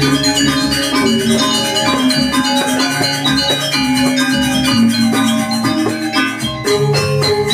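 Balinese gamelan playing: metallophones ring out in quick, dense runs of struck notes over a lower sustained melody, loud and steady throughout.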